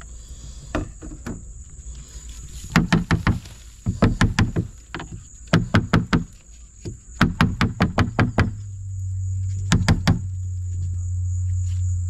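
A handheld vacuum's plastic-framed pleated cartridge filter knocked against the inside of a plastic wheelie bin to shake the dust out. It goes in about five quick runs of several sharp taps each, with short pauses between.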